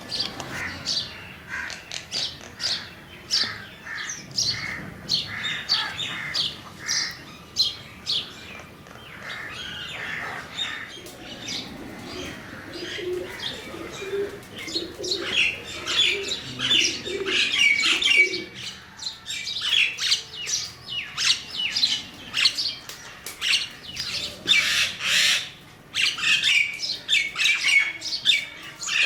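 Crows cawing, many calls overlapping one another without a break, busiest in the second half.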